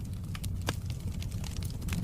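Wood fire crackling: frequent short, sharp pops and snaps over a steady low rumble of burning.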